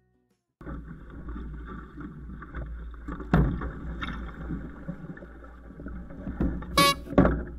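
Water rushing and splashing along the hull of a small sailing dinghy under way, with wind buffeting the onboard camera's microphone, starting suddenly about half a second in. A few loud slaps of waves or spray hit the boat a little before the middle and twice near the end.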